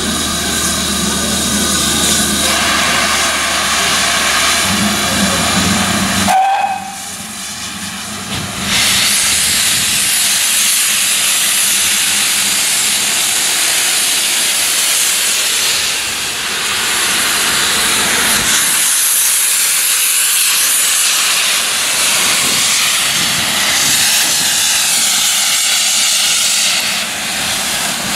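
GWR King class steam locomotive 6023 moving off with its cylinder drain cocks open, sending out a loud, continuous hiss of steam from about eight seconds in. Before that, a steadier pitched sound from the engine.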